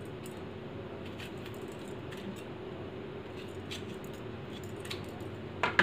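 Kitchen knife slicing a tomato by hand over a steel mixer jar: a few faint ticks, and a short knock near the end, over a steady low hum.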